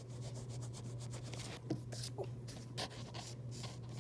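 Pencil and eraser work on paper: repeated short scratching and rubbing strokes over a steady low hum.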